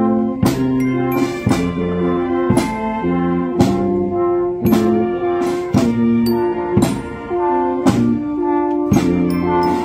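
Marching wind band playing a slow procession march: sustained brass chords led by euphonium, horn and sousaphone, over drum strokes about once a second.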